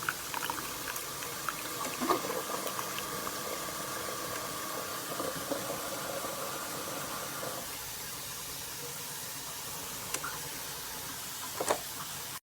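Keurig K-Slim pod coffee maker brewing: a steady pump hum with liquid streaming into the cup, which stops about seven and a half seconds in, followed by a couple of faint clicks.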